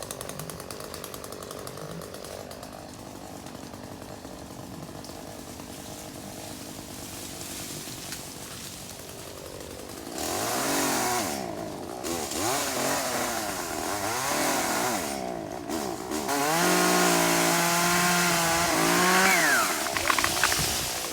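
Chainsaw running quietly at first, then revving up and down from about ten seconds in, held at high revs for a few seconds near the end, as it cuts ice-broken tree branches.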